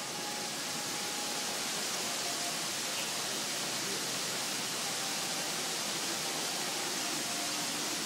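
Water falling from a digital water-curtain fountain, whose timed rows of drops form images and words, into its basin: a steady hissing rush that swells over the first second and then holds even.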